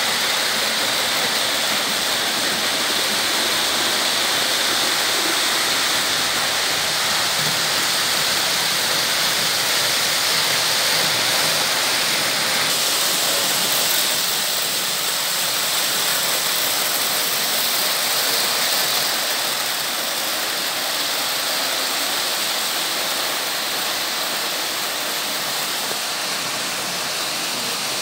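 Märklin H0 model trains running on stamped-metal M-track: a steady rushing rattle of wheels on the metal rails, easing a little about halfway through.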